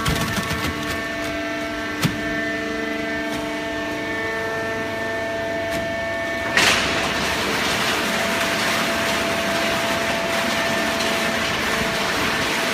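Hydraulic baling press running, a steady hum with several held tones and a sharp click about two seconds in. About halfway through there is a sudden loud burst, and the sound turns to a steady rushing noise.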